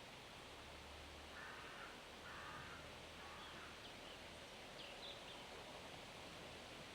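Faint, steady hiss of wind through forest leaves, with a bird giving three short calls, one after another, between about one and a half and three seconds in, then a few thin high chirps from a bird.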